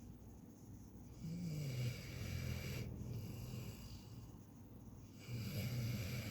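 Snoring close to the ear: slow, low snores, one starting about a second in and another near the end, a few seconds apart.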